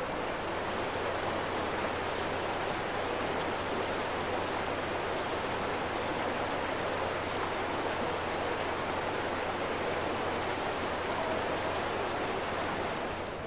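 Steady rushing of water from a small stream, with a steady low hum underneath.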